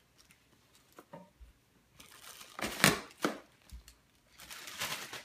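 Clear plastic packaging crinkling as a toy is pulled out of its bag, in two spells, the first louder, after a few light taps about a second in.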